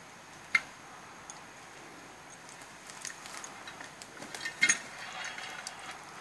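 Hands handling a cableway's wire rope and rigging hardware among cut pine branches. There is a sharp click about half a second in, scattered clicks and rustling, and a louder cluster of knocks and clinks about three-quarters of the way through.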